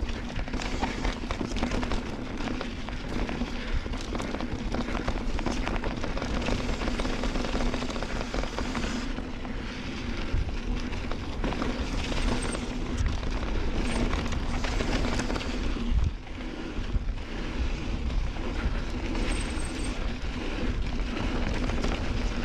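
Mountain bike descending a rough dirt trail: wind buffeting the camera microphone, with tyre noise and the bike's chain and frame rattling and clattering over the bumps.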